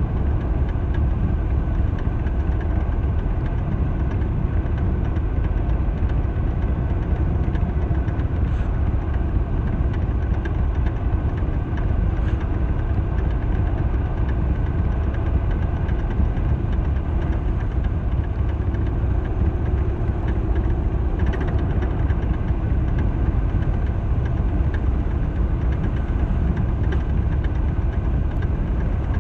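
Harley-Davidson Sportster XL1200R's air-cooled 1200 cc V-twin running steadily while the bike is ridden.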